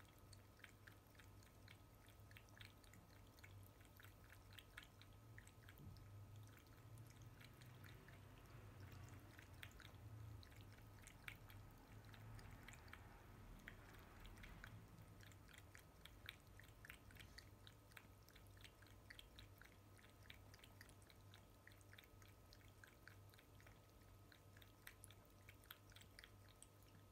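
Black-and-white cat lapping water from a washbasin: faint, quick wet laps, about three or four a second.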